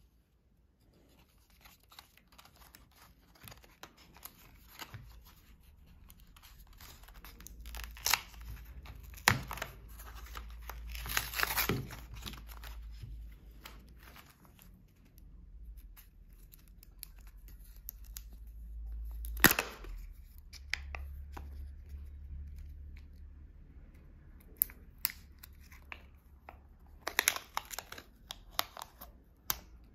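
Hands unpacking a Kinder Joy egg: rustling, crinkling and tearing of its plastic packaging with scattered clicks, a sharp loud snap about two-thirds of the way through, and the foil seal being peeled off the cream cup near the end.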